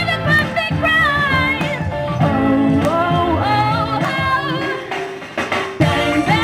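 A woman singing live into a handheld microphone over recorded backing music with a beat. The music thins out briefly about five seconds in, then comes back in loudly.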